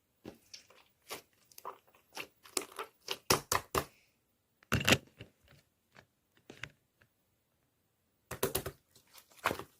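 Slime being squished and pressed by hand, giving irregular sticky pops and crackles: a quick run in the first four seconds, a loud squish about five seconds in, and another cluster near the end.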